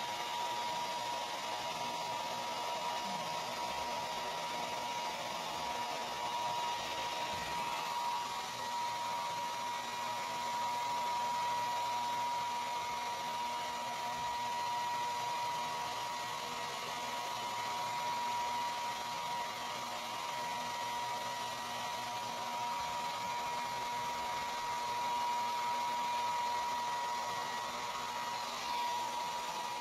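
Handheld hair dryer blowing steadily, a constant whine from its motor over the rush of air, drying a dog's wet fur.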